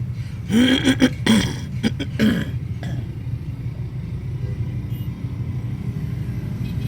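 Steady low hum of vehicle engines running, with short voice exclamations in the first two and a half seconds.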